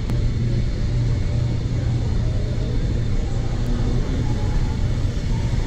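Steady low rumble and hum of a large indoor bus-terminal concourse, with no single sound standing out.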